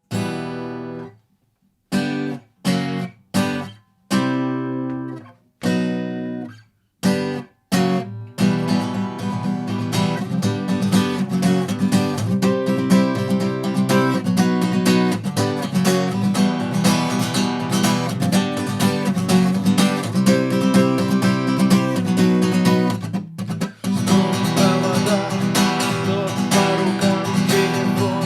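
Crafter acoustic guitar played solo: about seven short chords, each stopped sharply, then from about 8 seconds in continuous strummed chords.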